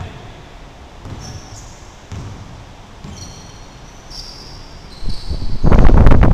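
A basketball bouncing on a hardwood gym floor about once a second, with short high sneaker squeaks. Near the end a loud, close rushing noise, like wind or rubbing on the microphone, covers everything.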